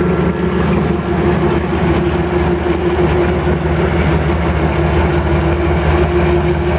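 Potato crossover (windrower) running steadily at work, with its engine making a constant low pulsing hum and a steady drone, as it digs four rows of potatoes and carries them along its chains.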